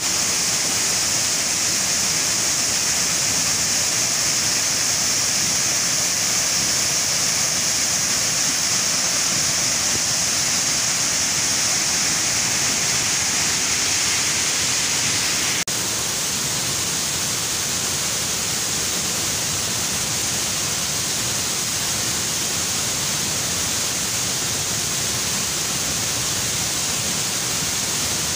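A waterfall after rain, rushing steadily as one loud wash of water noise. A little past halfway the rush changes abruptly to a slightly quieter, less hissy wash.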